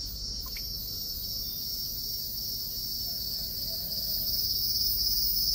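Steady high-pitched insect chorus trilling continuously over a low steady rumble, growing a little louder about four seconds in.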